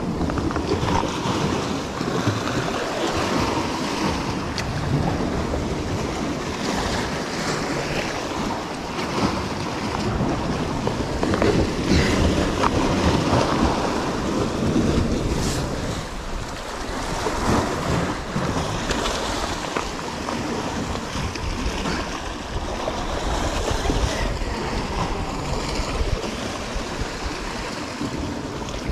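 Sea surf breaking and washing against rocks, swelling and easing, with wind buffeting the microphone.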